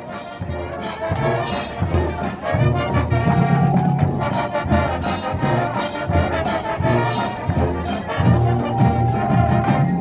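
High school marching band playing a field show, with brass to the fore over low drum pulses.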